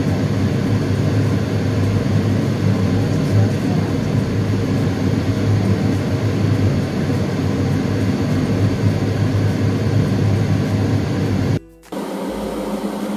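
A steady, loud whirring drone with a low hum. Near the end it breaks off for a moment at an edit and returns as a quieter, different hum.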